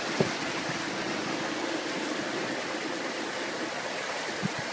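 Floodwater rushing and churning along the side of a vehicle as it wades through, a steady wash of water noise, with a faint steady engine tone underneath.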